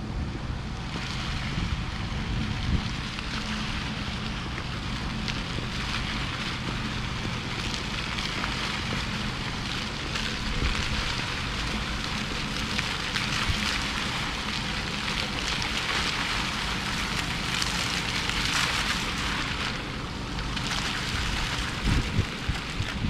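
City street ambience at night: a steady rushing hiss with a low hum underneath, swelling louder in the middle and again near the end, and a few short low thumps near the end.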